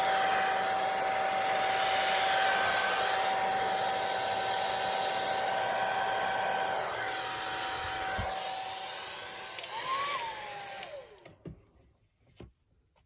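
Hair dryer blowing steadily with a constant tone in its rush of air, then switched off about eleven seconds in, its whine briefly rising and then falling as the motor winds down. A few faint clicks follow.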